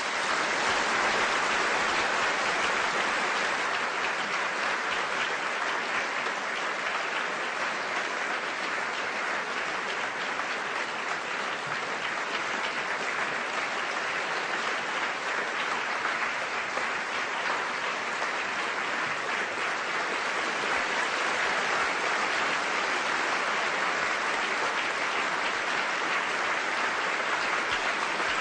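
An audience applauding: many hands clapping together in a dense, steady wash, with no cheering or voices standing out.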